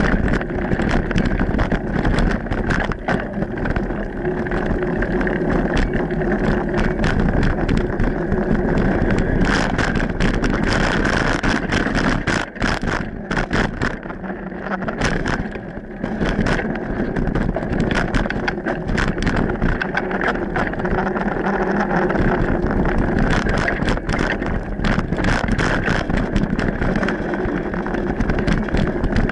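Mountain bike ridden over a dirt singletrack, heard from a camera on the rider or bike: a steady rumble of tyres on dirt with constant rattles and knocks from bumps, and wind buffeting the microphone. It eases briefly about halfway through.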